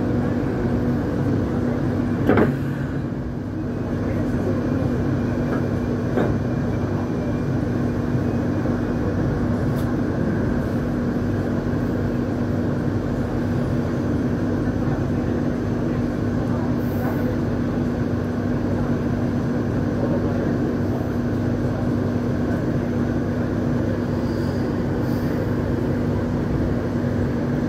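Hong Kong Light Rail Phase III car in service: steady running rumble with a constant hum. A single sharp knock comes about two seconds in, and a fainter one a few seconds later.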